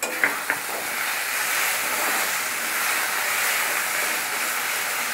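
Onions frying in hot mustard oil in a steel wok, a steady sizzling hiss that sets in suddenly at the start, with a couple of spatula taps and scrapes at the beginning.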